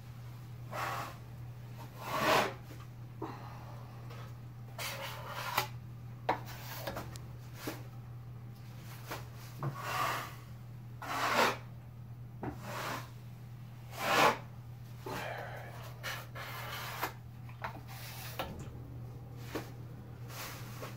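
Steel drywall knife scraping and smoothing joint compound across a drywall ceiling, feathering it out in short, irregular strokes, a few louder than the rest. A steady low hum lies underneath.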